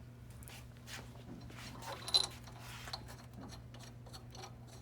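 Light metallic clicks and clinks of bolts and nuts being handled and threaded into a valve bonnet by hand, with one sharper clink about two seconds in, over a steady low hum.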